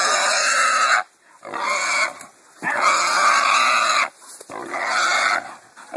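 A 120 lb hog sow squealing while the catch dogs hold her: four long, harsh squeals of about a second each, with short breaks between them.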